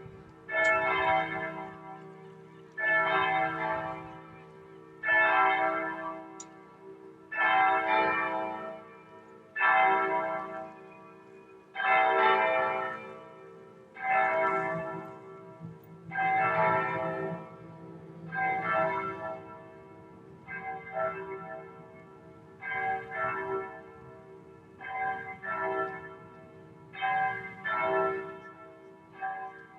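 Large church bells ringing, a loud stroke about every two seconds, each ringing on into a lingering low hum. Past the middle the strokes come in quicker, softer pairs.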